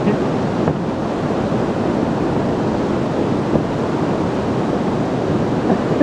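Steady, loud rush of a fast white-water mountain river pouring over rocks.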